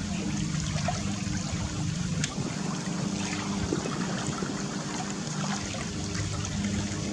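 Water trickling and lapping, with a faint steady low hum underneath.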